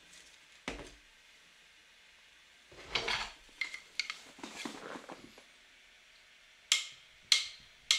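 Scattered knocks and clatter: a dull thump about a second in, a cluster of clattering and clicks in the middle, and two sharp clacks near the end.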